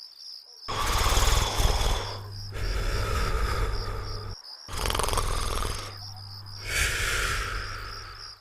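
Cartoon character snoring: four loud snores about two seconds apart, each a low rattling rumble with a breathy hiss.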